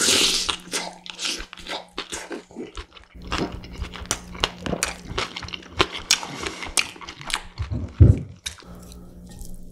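Close-miked chewing of a big mouthful of rice with pork, young-radish (yeolmu) kimchi and green chili, full of quick wet clicks and crunches. A heavy low thump sounds about eight seconds in, and the chewing thins out near the end.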